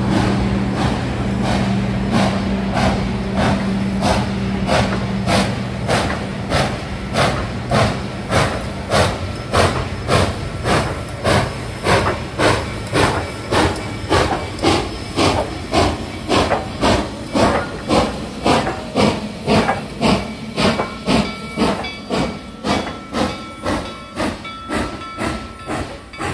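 Reading & Northern 2102, a 4-8-4 steam locomotive, chuffing under steam: a steady, even exhaust beat of about two chuffs a second, each with a hiss of steam.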